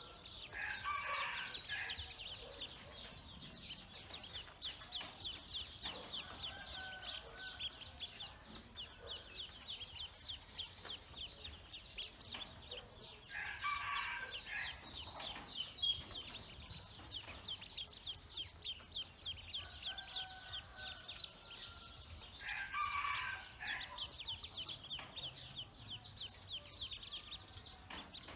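Pekin ducklings peeping, a dense rapid stream of short high-pitched peeps. A rooster crows three times in the background: about a second in, halfway through, and about two-thirds of the way in.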